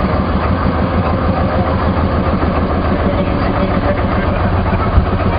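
Small riverboat's engine running steadily underway. A single sharp knock sounds near the end.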